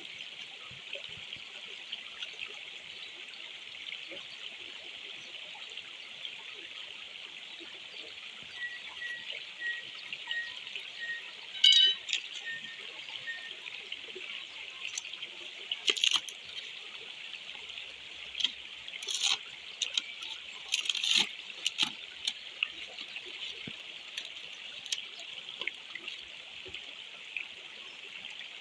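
Shallow stream trickling steadily over rocks. A sharp click about twelve seconds in is the loudest sound, and a scatter of clicks and knocks follows later.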